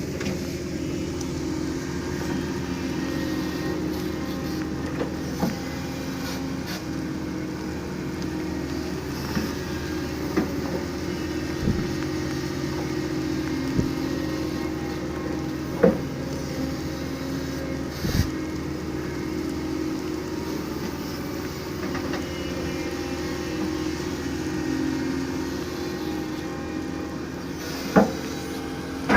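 Doosan DX225LCA excavator's diesel engine running steadily while it digs, with a few scattered sharp knocks and clunks.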